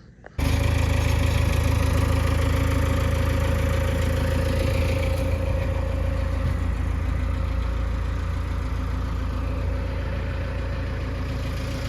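An engine idling steadily, with a low even hum; it cuts in suddenly about half a second in.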